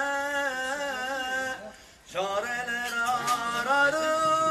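A man singing a Turkish Sufi hymn (ilahi) unaccompanied, drawing out long wavering notes, with a short break for breath about two seconds in.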